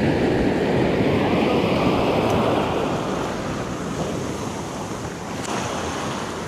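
Ocean surf washing against the jetty and beach, with wind buffeting the microphone. The rush is loudest over the first half and eases off about halfway through.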